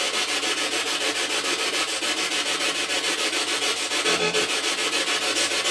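Ghost-hunting spirit box sweeping through radio frequencies: a loud hiss of static chopped into a fast, even pulse. There is a brief snatch of tone about four seconds in.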